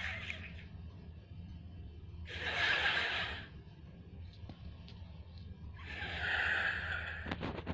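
Two breathy, sigh-like bursts of a sound effect, each about a second long, a few seconds apart, followed by a few sharp clicks near the end over a faint steady low hum.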